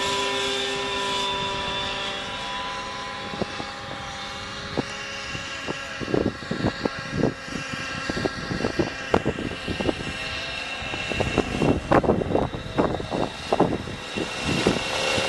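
Radio-controlled model helicopter flying, its rotor and drive giving a steady whine that fades during the first few seconds, as in an autorotation with the power cut. In the second half comes a run of sharp clicks and knocks.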